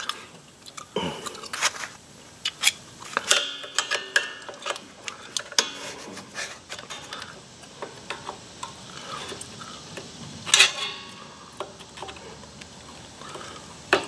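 Screwdriver turning the star-wheel adjuster of a golf cart's rear drum brake to back the shoes in: scattered small metal clicks and scrapes, with one louder scrape about ten seconds in.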